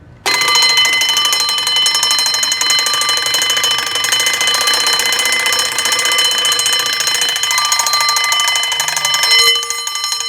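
Heat detector alarm sounding a loud, continuous, harsh buzzing tone that starts abruptly and holds steady.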